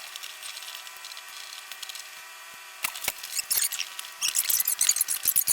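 Small clicks and scraping from hand work with tools, sparse at first and growing busy and rapid in the second half.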